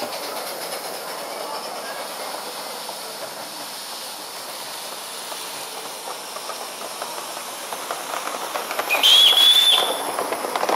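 Live-steam model steam locomotive hissing steadily as it stands under steam. About nine seconds in comes a short shrill whistle, the loudest sound, and the train starts off with light clicking of wheels on the track.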